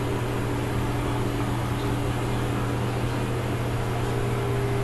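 A steady low electrical hum with an even hiss over it, unchanging throughout, like a running motor or appliance.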